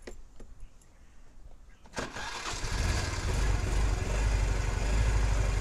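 Scooter engine starting about two seconds in, then running steadily at idle. This is its normal, stock sound, unmodified.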